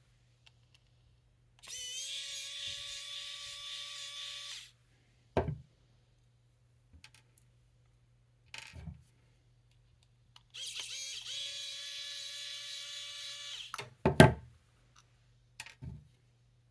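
Small cordless power screwdriver backing out the screws of a chainsaw carburettor's diaphragm cover. It runs in two steady whining spells of about three seconds each, each rising briefly in pitch as it starts, with a few short knocks between them, the loudest near the end.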